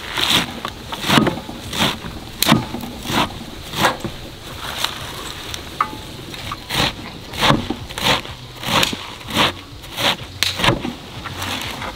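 Large cleaver chopping fresh leafy greens on a metal tray: a steady run of crisp chops, about one and a half a second, pausing briefly about halfway through.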